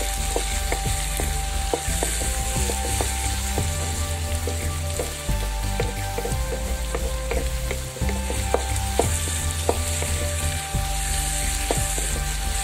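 Chopped onions and tomatoes sizzling in oil in a pan while a spatula stirs and scrapes them, with frequent short scrapes and clicks of the spatula against the pan.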